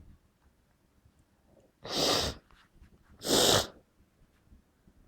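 Two short, forceful human sneezes about a second and a half apart, the tail end of a sneezing fit that the sneezer puts down to a bad cold.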